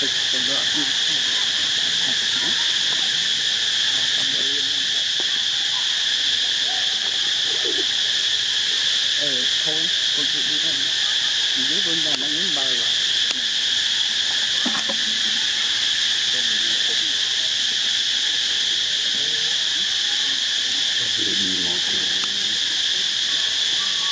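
Steady, high-pitched drone of an insect chorus, unbroken throughout. Faint low voices come and go beneath it.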